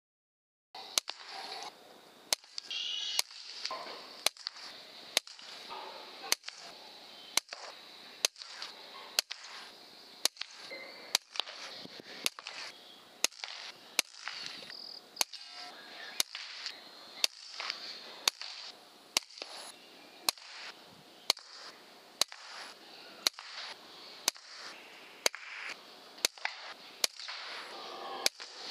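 A rapid run of .22 PCP air rifle shots, each a sharp crack, about two a second, over a steady high-pitched background hiss.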